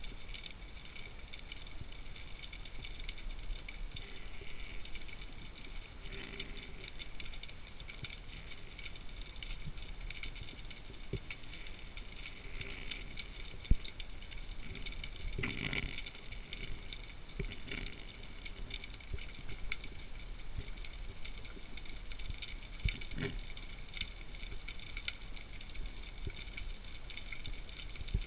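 Underwater ambience heard through a diving camera's housing: a steady, fine crackling hiss with scattered sharp clicks, the loudest about halfway through, followed by a brief rushing swish.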